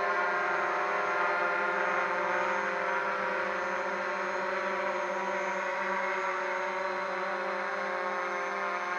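DJI Mavic Pro quadcopter hovering close overhead, its four propellers and motors giving a steady, many-toned whine.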